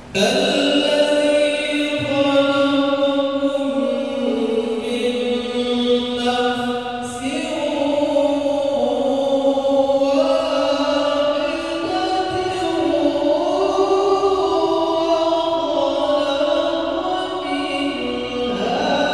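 A man's voice chanting a melodic Qur'an recitation (tilawah) into a hand microphone, with long drawn-out notes that slide slowly between pitches. The chant begins abruptly at the start.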